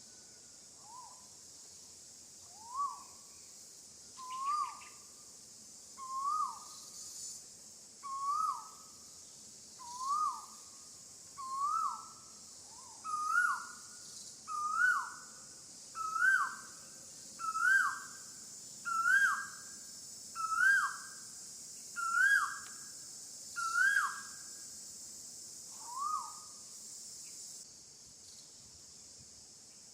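A bird calling a long series of hooting notes, about one every second and a half, each swooping up and then dropping in pitch; the series climbs in pitch and loudness before stopping. A steady high drone of insects runs underneath.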